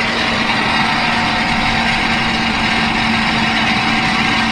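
Camper van engine running with a steady roar and screech from the front of the engine, which the owner guesses is a failing bearing of some type.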